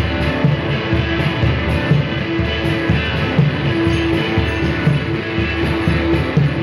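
Live electric guitar and percussion playing a repetitive, droning groove: a held, repeating guitar note over a steady low beat.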